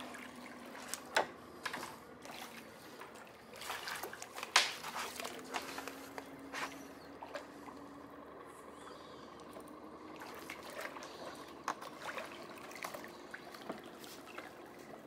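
Small, irregular water splashes as a hooked sheepshead thrashes at the surface, over a faint low hum that rises slowly in pitch.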